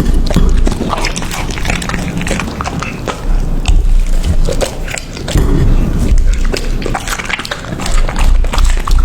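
A dog chewing and crunching food close to the microphone: dense, irregular wet crunches and clicks of teeth.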